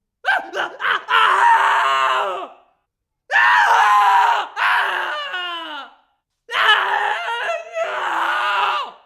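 A person screaming in pain: three long, loud cries with short gaps between them. The first opens with a few short stabs, and the second slides down in pitch as it trails off.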